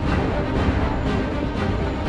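Background music with a steady low bass and drum-like pulses.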